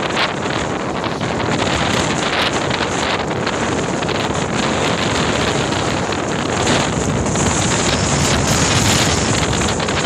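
Strong wind buffeting the microphone: a loud, steady rush of wind noise that swells a little in the second half, from gusts of up to 80 km/h.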